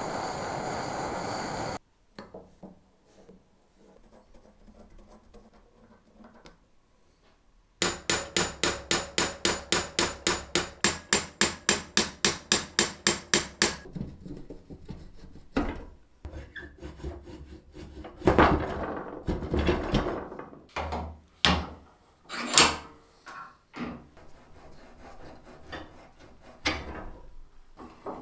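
A blowtorch hisses briefly on the rust-seized gear nut of an antique cast-iron potato peeler. After a quiet spell comes a fast, even run of metal taps, about five a second for some six seconds. Then come irregular knocks, grinding and scraping as the rusty bevel gears and shaft are worked by hand.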